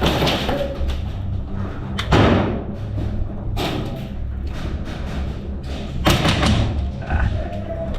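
Three heavy, echoing thumps about two, three and a half and six seconds in, over steady background music.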